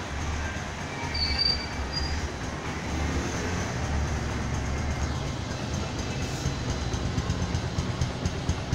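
Bajaj Platina 100's single-cylinder four-stroke engine idling with a steady low rumble.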